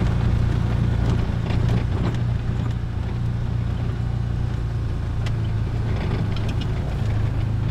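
Small off-road vehicle engine running at a steady, even pitch, with a few light clicks and rattles over it.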